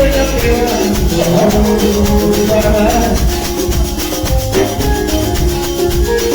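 A live band playing an upbeat dance number, with a steady shaker rhythm over pitched melody lines and a heavy bass.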